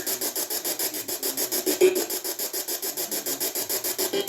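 Ghost-hunting device giving off a steady, rhythmic rasping static, about five pulses a second.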